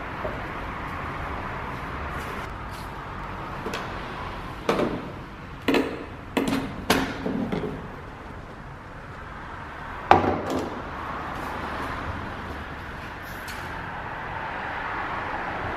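Hard plastic knocks and rattles as the battery compartment cover in a Mercedes W211's engine bay is unscrewed and lifted out: a cluster of sharp knocks about five to seven seconds in and one more about ten seconds in, over steady background noise.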